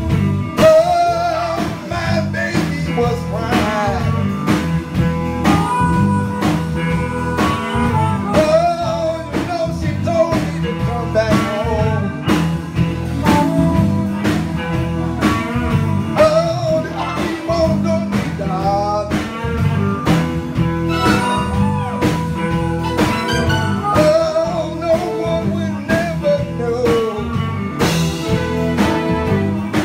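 Live blues band playing: an electric guitar lead with bent notes over bass and a steady drum beat.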